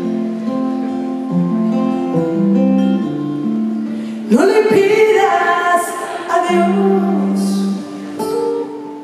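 Live acoustic guitar picking a slow melody of held notes, with a woman's singing voice coming in about four seconds in and carrying over the guitar for a few seconds.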